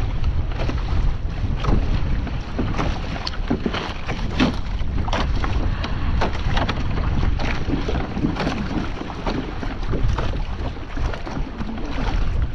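Strong wind buffeting the microphone, with water slapping and splashing irregularly against a kayak on choppy water.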